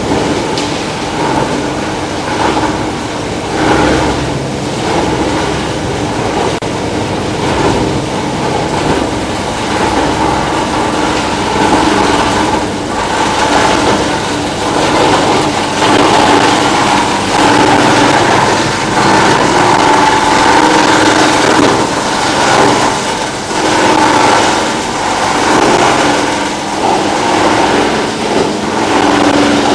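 Plastic washing and recycling line machinery running: a steady motor hum with irregular knocking and clatter over it.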